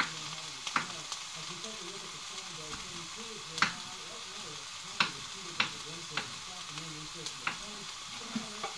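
Chopped garlic, tomato and mushrooms sizzling in a frying pan on medium heat, a steady hiss, with about six sharp clicks and knocks scattered through it, the loudest about three and a half seconds in.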